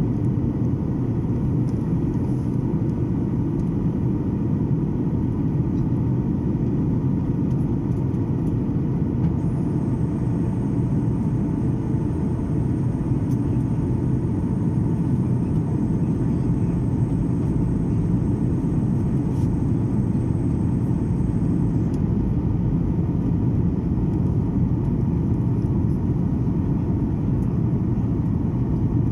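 Steady in-flight drone of a Boeing 737 airliner: engine and airflow noise as a constant low rumble with a faint even hum. A faint high steady whine joins for about twelve seconds in the middle.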